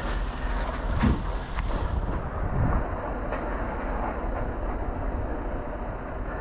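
A heavy engine running steadily with a low rumble, and two louder knocks about a second in and near three seconds in.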